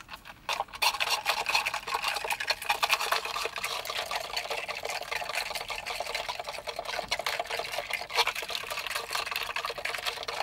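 Ice cubes rattling and clinking fast and without a break as a straw stirs an iced coffee in a plastic cup with a dome lid, starting about half a second in.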